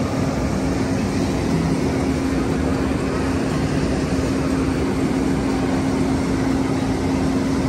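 Fire engine running its water pump with a steady low drone, over the even rushing noise of its hose stream spraying water high into the air.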